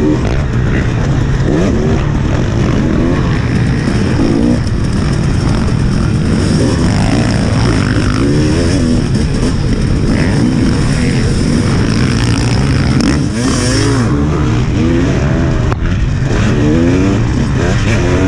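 KTM 300XC single-cylinder two-stroke dirt bike engine ridden hard, revving up and down over and over as the rider works the throttle through the track.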